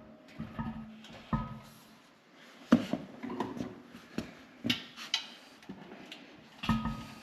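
Irregular knocks and clanks, some ringing briefly like struck metal, from work on a compressor being fitted onto its floor anchors.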